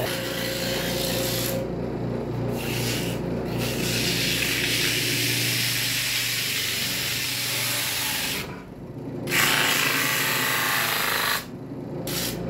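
A small salvaged air-curtain fan motor of one-third horsepower hums as it spins a glued-up wooden disc and drum. A turning chisel scrapes the wood true, then sandpaper is held against the spinning wood. The rubbing stops briefly a few times as the tool is lifted off, and is loudest near the end.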